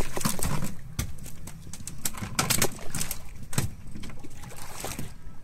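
Sea water slapping and splashing against the side of a fishing boat, with irregular sharp splashes and knocks over a low steady hum.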